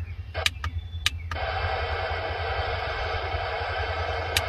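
Radioddity CB-27 mini CB radio: a few quick clicks as the squelch is stepped down, then about a second and a half in the squelch opens and steady receiver static hisses from the speaker, over a low steady hum.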